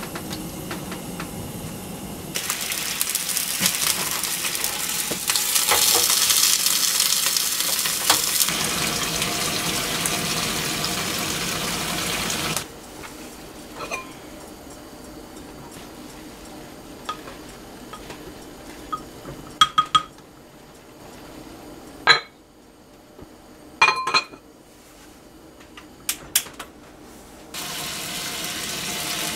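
Loud, steady hiss from the gas stove with sausages heating in a square pan. After that comes a quieter stretch with several sharp clinks of crockery around a steaming clay rice pot, and near the end the hiss returns as oil heats in a frying pan.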